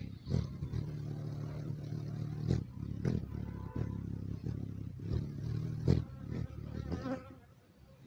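Hummingbird wings humming as the bird hovers close by, a steady low buzz broken by a few sharp clicks. The hum fades away near the end.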